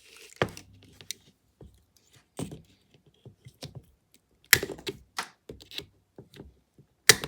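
A multitool's pliers being squeezed on wire to test the wire cutters, giving a few separate sharp metallic clicks and snaps. The loudest come about four and a half seconds in and near the end.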